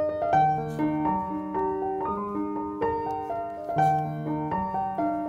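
Background piano music: a melody of single notes over low chords, with a few new notes struck each second.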